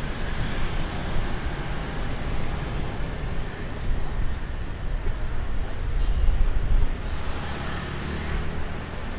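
Street traffic of motor scooters and cars running past, a steady low rumble that swells loudest about two-thirds of the way through.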